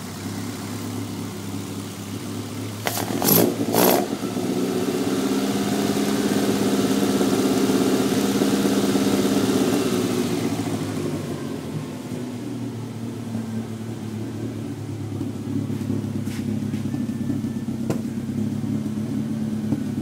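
Toyota 3S-GE BEAMS four-cylinder engine running with a misfire. About three seconds in come a few sharp, loud bangs, then the engine gets louder for about six seconds before settling back.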